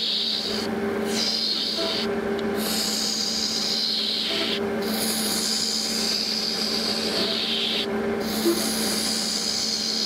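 Lathe turning a cast epoxy-resin blank: a steady scraping hiss from the turning tool cutting ribbons of resin, over the lathe motor's steady hum. The cut breaks off briefly three times as the tool is lifted and set back in.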